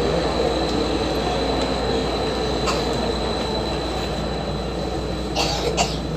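Athens Metro Line 1 electric train running along the track: a steady rumble with a thin, steady high whine, one faint click about midway and two sharp clicks near the end.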